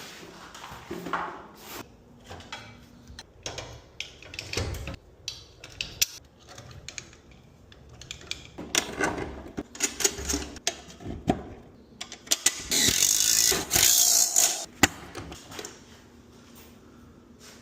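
Tools and metal parts clicking and knocking at irregular intervals while a new drive belt is fitted to a garage door opener, with a louder burst of harsh noise lasting about two seconds past the middle.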